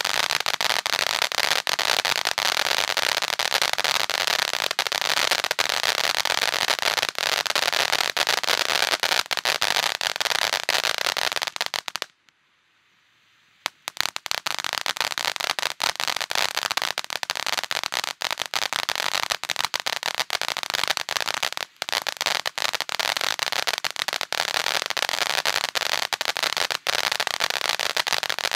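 Twilight Fright ground fountain firework spraying sparks: a steady loud hiss packed with fast crackling pops. It stops for about a second and a half near halfway, then starts again just as dense.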